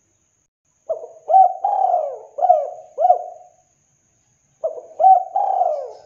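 Spotted dove cooing: two phrases of short coos, each with one longer drawn-out coo in it. The first phrase starts about a second in, and the second follows after a pause of about a second.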